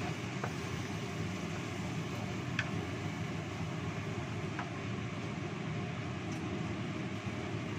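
Steady hiss of fish simmering in coconut-milk sauce in a wok over a gas burner, with a few light knocks of a wooden spatula against the wok as it is stirred.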